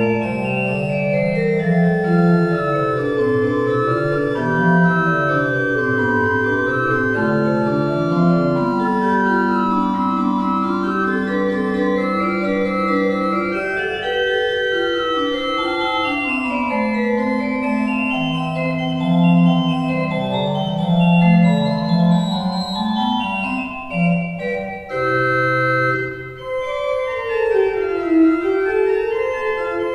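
Church organ playing the closing postlude, several sustained voices moving slowly together, with a brief drop in loudness about 24 seconds in.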